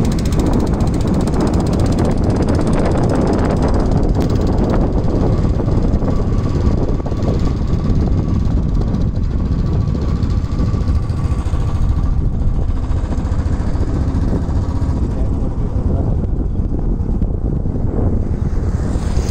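Wind buffeting the camera's microphone: a loud, steady, rumbling noise with no clear pattern.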